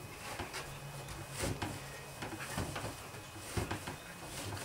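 Moist pottery clay being kneaded by hand on a worktable: soft, irregular pats and thumps as the lump is pressed down and turned, a few a little louder than the rest. A little water has just been sprinkled on to soften the stiff clay.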